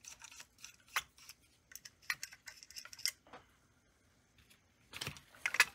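Small metallic clicks and taps of a screwdriver working the screws on a toy locomotive's sheet-metal frame, with parts being handled. There is a quiet spell in the middle and a louder cluster of clinks near the end.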